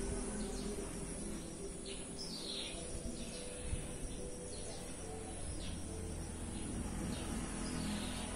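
Birds chirping now and then, short falling chirps, over a steady low background hum.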